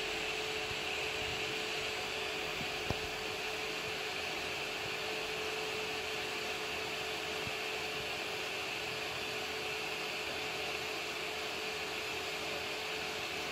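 Anycubic Kobra Max 3D printer running mid-print: a steady fan whirr with a constant hum tone, and a single short click about three seconds in.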